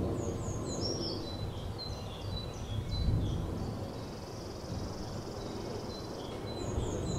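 Small songbirds singing: a high, falling three-note phrase near the start and again near the end, with a thin trill in the middle, over a steady low rumble.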